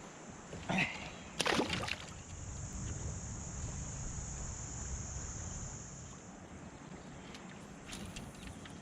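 Insects buzzing in a steady high drone that fades out about six seconds in, over a low rumble of water against a kayak. There is a short, sharp clatter about a second and a half in.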